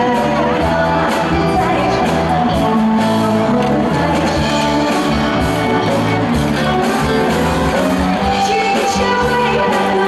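A live band plays a pop song while a woman sings through the PA into a handheld microphone. Drums keep a steady beat under her amplified vocals.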